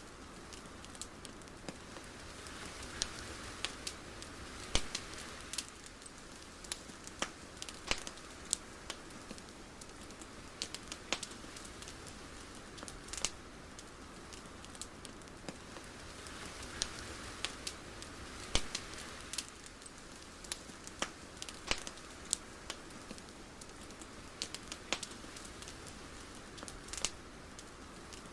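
Ambient crackling: irregular sharp crackles and pops over a soft steady hiss. The hiss swells gently twice.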